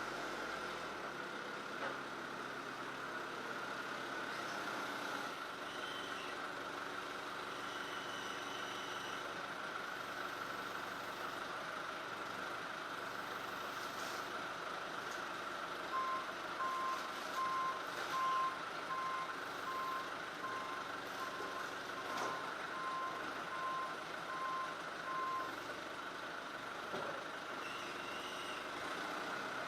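A vehicle's reversing alarm beeping about once a second for roughly ten seconds, starting about halfway through, over a steady engine hum.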